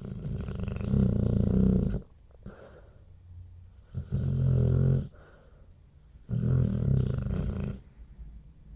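Snoring: three long, loud snores, the first about two seconds long and the next two shorter, with quieter pauses between breaths.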